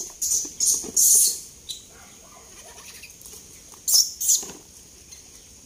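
Short, high, hissing bursts from wire cage traps full of macaques being fed: a quick run of them in the first second and a half, then two more about four seconds in.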